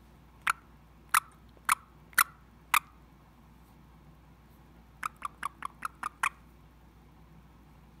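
Indian ringneck parrot making short, sharp clicking sounds: five about half a second apart, then, after a pause, a faster run of seven.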